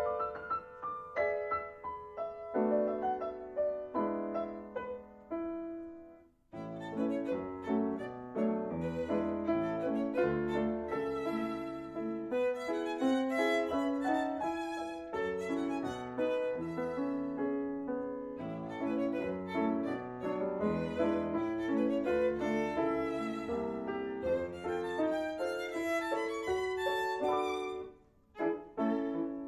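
Music score for a silent film: a violin melody with piano accompaniment. It breaks off briefly about six seconds in and again near the end.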